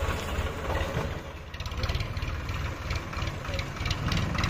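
Heavy diesel engine running steadily at low speed with a rapid low throb. From about a second and a half in, a series of light sharp ticks comes about three times a second.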